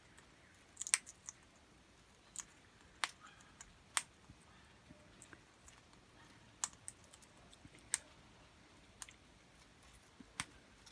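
Australian king parrots cracking and husking seed in their beaks: faint, irregular sharp clicks, about one or two a second.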